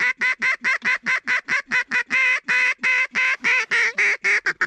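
Mallard duck call blown in a long, even run of quacks, about five a second.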